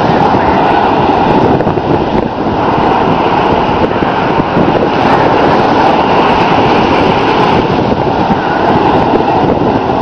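Ocean surf breaking steadily on the beach, a constant rushing noise, with wind buffeting the microphone.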